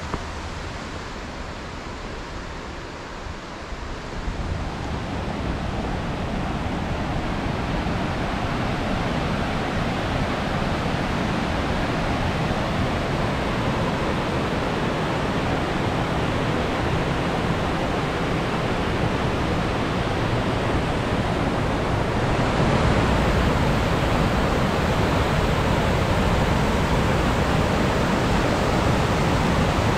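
Bald River rushing down its rocky cascades and falls, a steady roar of water that swells about four seconds in and again near the end.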